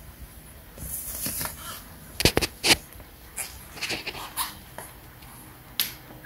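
Irregular sharp clicks and rustling, with the loudest, three quick clicks, a little over two seconds in. This is handling noise as the phone is moved about the car's interior.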